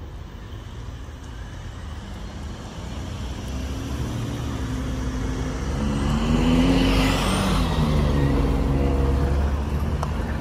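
Road vehicles driving over a railroad grade crossing: engines and tyres growing louder as an SUV and then a box delivery truck approach and pass close by, loudest about two-thirds of the way through.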